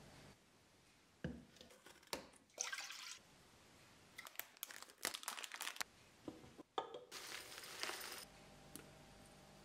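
Quiet sounds of milk being poured into a plastic measuring jug, then dry short-grain rice poured from its bag into a glass bowl. The rice makes a brief rattling hiss of grains about seven seconds in, with scattered soft clicks and crackles between the two pours.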